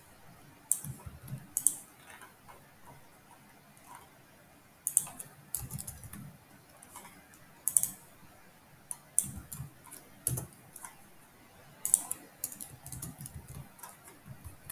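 Computer keyboard keys and clicks tapping in short, irregular clusters with pauses between, as code is edited.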